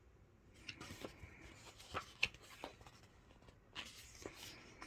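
Faint paper rustling and a few light clicks and taps: a picture book's pages being handled and turned.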